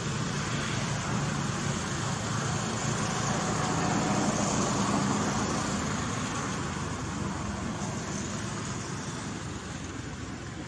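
Steady traffic noise with a low rumble, swelling about four seconds in as a vehicle passes, then slowly fading.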